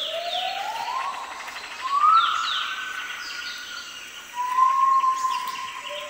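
Long, slow whistled notes that slide upward and then hold, the loudest about two seconds in and again from about four and a half seconds, as a bird trapper whistles to lure songbirds. Short, falling bird chirps sound above them.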